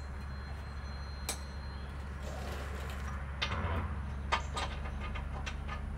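A steady low machine hum, like an engine or motor running, with a few sharp knocks and clicks from hand work on metal parts, one about a second in and a cluster a little past the middle.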